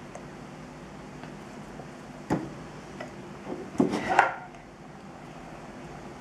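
Plastic parts of a Play-Doh toy ice-cream maker being handled while dough is pressed into it: one sharp click about two seconds in, then a short flurry of knocks and rubbing near four seconds, against quiet room tone.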